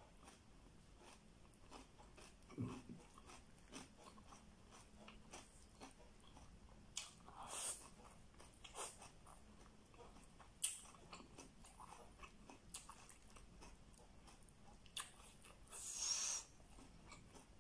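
A person chewing a mouthful of rice and chicken adobo: quiet wet mouth clicks and smacks, with a few louder ones and a short breathy burst near the end.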